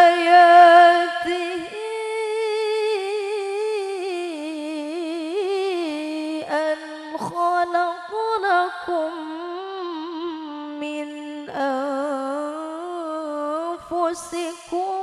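A woman reciting the Quran in the melodic tilawah style into a microphone: one voice holding long, ornamented notes with wavering pitch, stopping briefly for breath a few times.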